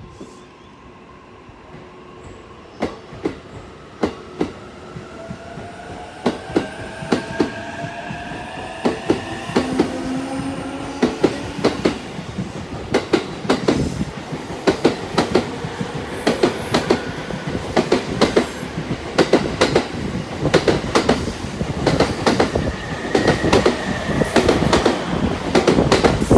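E233 series 3000 and E231 series 1000 electric multiple units departing: the inverter-driven traction motors give a whine that rises in pitch as the train accelerates, then the wheels click over the rail joints faster and faster as the cars pass.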